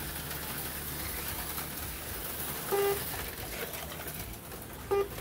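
HO slot cars whirring steadily around the track. Two short electronic beeps, typical of a lap-counting system, sound about three seconds in and again near the end.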